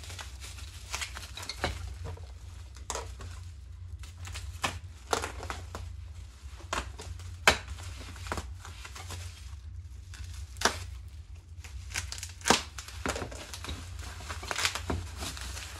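Bubble wrap and plastic packaging crinkling and rustling as parts are unwrapped by hand, with a few sharper clicks in between.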